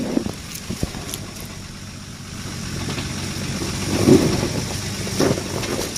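Nissan Patrol's engine running under load as it drives out of muddy water, growing louder from about two seconds in to a peak about four seconds in, with a few short knocks near the start.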